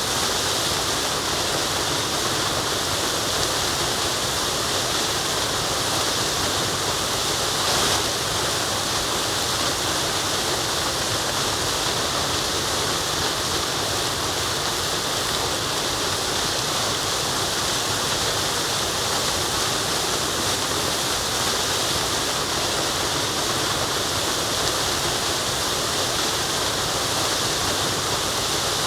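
Waterfall and running water rushing steadily, a constant full roar with a slight swell about eight seconds in.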